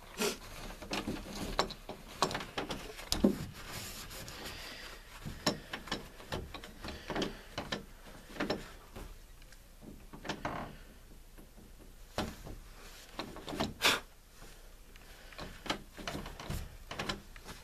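A doorknob being wiped dry by hand: rubbing with many scattered clicks and knocks from the knob and door.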